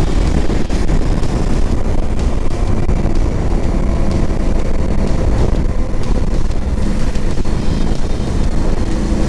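Motorcycle on the move, the 2023 KTM 890 Adventure R's parallel-twin engine running steadily under heavy wind rush on the microphone.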